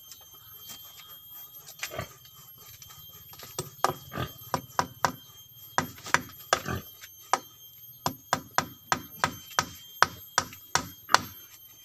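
A wooden-handled hand tool striking repeatedly, sharp blows about two or three a second that begin a few seconds in and get louder toward the end.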